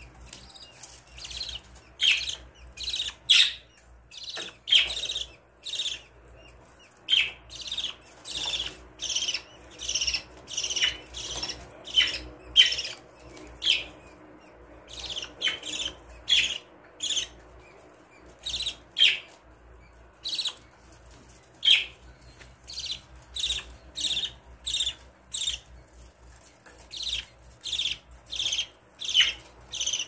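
Budgerigars giving short, sharp chirps over and over, about two a second, with a few brief pauses.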